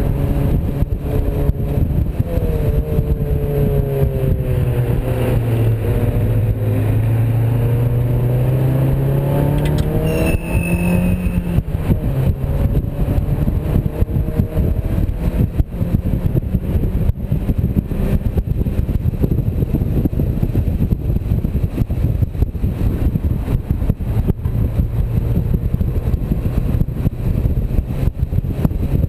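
Mazda MX-5's four-cylinder engine heard from the open-top cockpit under hard driving, its note falling and then climbing again before fading into heavy wind buffeting about eleven seconds in. A brief high squeal sounds about ten seconds in.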